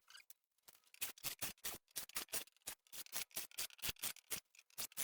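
A rapid run of short, sharp clicks or snips from a hand tool at work on the control panel's fittings, about four to five a second, starting about a second in.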